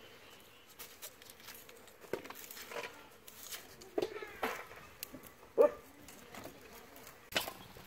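Short animal calls, several times, the loudest a little past halfway, over faint clicks and knocks from onions being peeled on a blade and handled over a basin of water.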